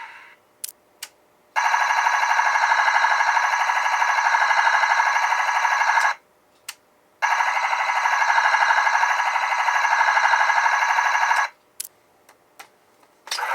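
DX VroCanGatling toy playing an electronic sound effect through its small speaker in gatling mode: a steady, rapid stuttering buzz, heard twice for about four and a half seconds each time. Short plastic clicks come just before, between and after the two stretches.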